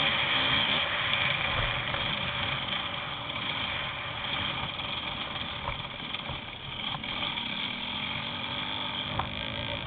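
Onboard riding noise from a vehicle moving fast over a forest dirt trail: a steady drone over a rough, uneven rumble, with a few sharp knocks from the bumps in the second half.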